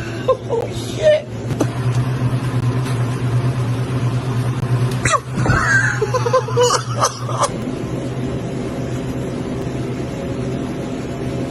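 Steady low hum of convenience-store cooler refrigeration, with short startled vocal outbursts (gasps and yelps) near the start and again about five to seven seconds in.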